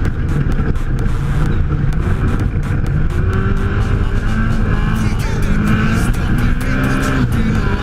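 Off-road race vehicle engine running hard, its pitch rising and falling, with short knocks and rattles mixed in.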